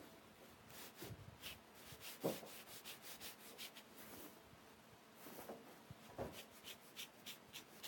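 Faint paintbrush strokes rubbing across paper: a series of short scratchy swishes, coming quicker, about two a second, in the second half.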